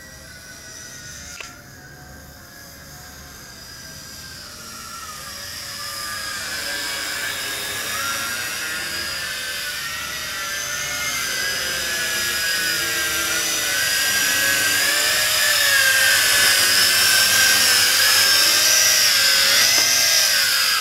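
Yizhan Tarantula X6 quadcopter's motors and propellers whining in flight: a high, wavering whine of several pitches that grows steadily louder as the drone comes in close, then falls away right at the end.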